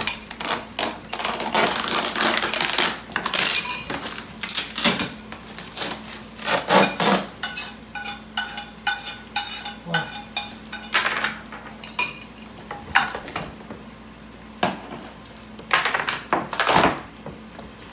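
Clear packing tape being pulled and torn off a cardboard shipping box, with rips, crinkling tape and knocks of the box being handled, coming in irregular bursts.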